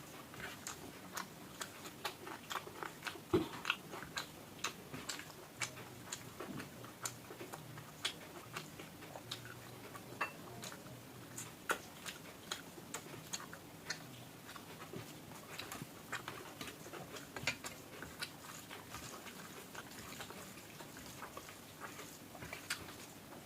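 Close-up chewing and wet mouth clicks of a person eating a meal of rice and curry, in irregular sharp smacks several times a second.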